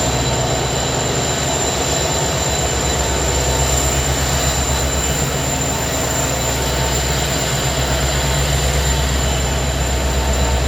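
Metra commuter train running, a steady low rumble with faint thin tones of wheel and rail noise.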